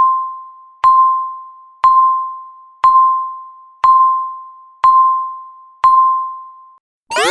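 Countdown timer beep sounding once a second, seven times, each a single ringing tone that fades away before the next. The beeps stop, and just at the end the loud zero alarm of fast rising sweeps starts.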